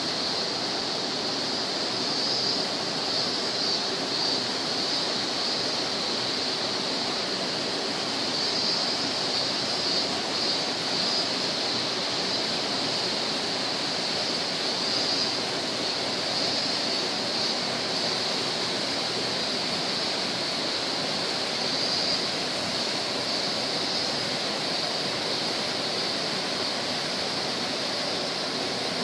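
Steady rush of a tall waterfall, water falling about 30 m and splashing into the pool below, a constant hiss strongest in the upper range.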